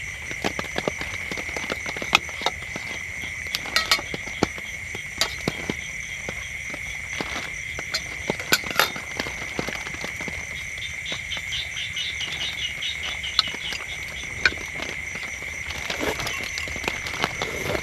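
A steady, high-pitched chorus of frogs and insects, with raindrops falling as scattered sharp taps. About two-thirds of the way through, a frog calls in a rapid run of notes.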